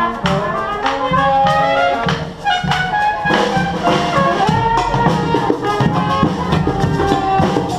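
Brass band playing a tune, horns carrying the melody over a steady drum beat.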